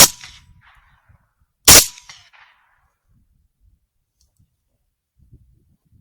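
Two shots from a suppressed AR10 rifle in 6.5 Creedmoor, about 1.7 seconds apart, each a sharp crack with a short fading tail.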